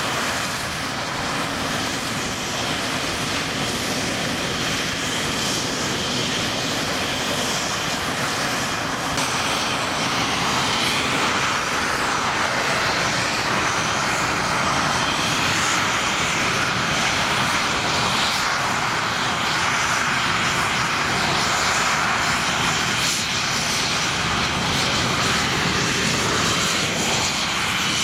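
English Electric Lightning's twin Rolls-Royce Avon turbojets running on the ground: a steady loud jet rush with a thin high whine over it, growing a little louder after about ten seconds.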